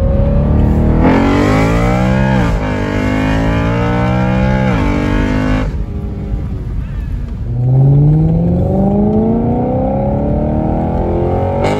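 BMW E93 M3's 4.0-litre S65 V8 exhaust under hard acceleration, the pitch climbing and then dropping at two quick upshifts. About halfway through it eases off briefly, then pulls hard again with the pitch rising steadily.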